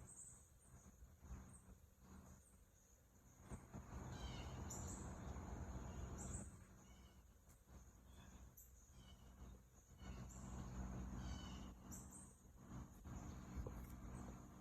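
Faint outdoor ambience: a steady high-pitched insect drone with short bird chirps scattered through it, and a low rumble that rises twice, a few seconds in and again after about ten seconds.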